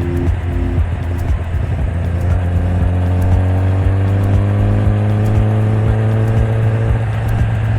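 Kawasaki ZX-10R's inline-four engine pulling under acceleration on the road, its pitch climbing steadily for about five seconds, then breaking off near the end.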